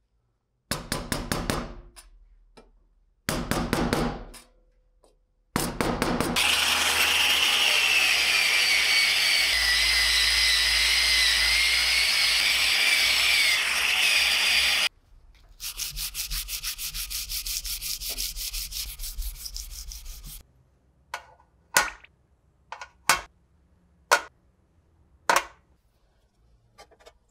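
Metal plate of an old spring scale being sanded: three short bursts of quick hand-rubbing strokes, then an electric sander running on the plate for about eight seconds with a steady whine, then a quieter stretch of rapid rubbing. A few sharp separate clicks follow near the end.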